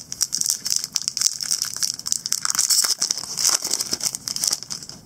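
Plastic wrapper of a Panini Contenders football card pack crinkling as it is handled and pulled open: a dense run of crackles that stops near the end.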